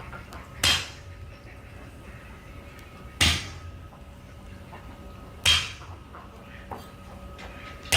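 Four sharp blows, evenly spaced about two and a half seconds apart, each a quick hit with a short ringing tail.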